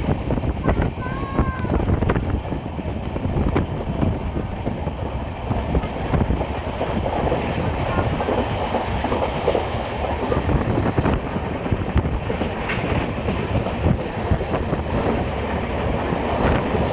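Passenger train running along the line: a steady rumble and hiss of the moving coaches, with irregular knocks and clatter from the wheels on the rails.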